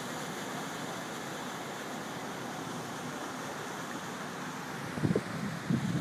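Steady rushing splash of an SUV driving through floodwater on a street, its wheels throwing up spray. A few low thumps on the microphone near the end.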